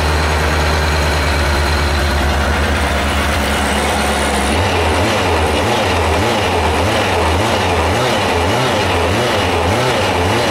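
Yamaha FJ1100's air-cooled inline-four engine running at a steady idle; about four and a half seconds in, its note turns uneven, wavering up and down.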